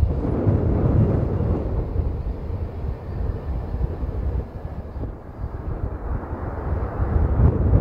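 Low, steady rumble of jet aircraft engines at the airport, swelling slightly near the end.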